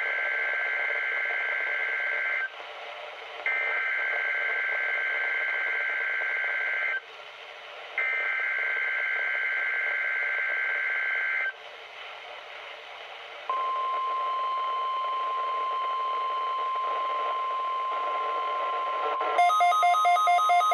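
NOAA Weather Radio test signal: the SAME digital header is sent three times as two-tone warbling data bursts of about two and a half seconds each, with short gaps between them. A steady single-pitch alarm tone follows, the weather radio's 1050 Hz warning tone. Near the end, a loud, rapidly pulsing beep comes in over it.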